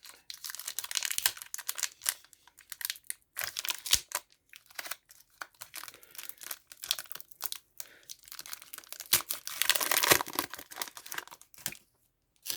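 Foil booster pack of collectible trading cards being torn open and crinkled by hand, irregular crackling and tearing in several long spells that stop shortly before the end.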